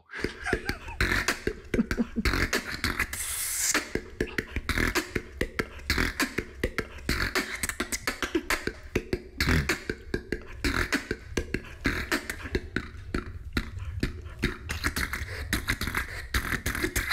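Beatboxing done without the lips, which are held back by a cheek retractor: a fast stream of drum-like clicks and hissing snares over a continuous low bass, with a longer hiss about three seconds in.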